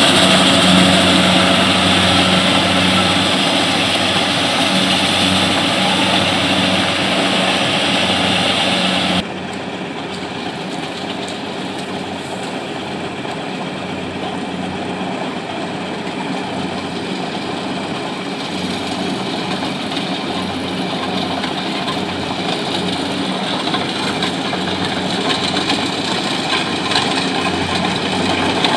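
Kubota rice combine harvester's engine and threshing machinery running steadily while it harvests, heard close up at first. About nine seconds in, the sound drops suddenly to a quieter, more distant hum, which grows gradually louder as the machine comes nearer.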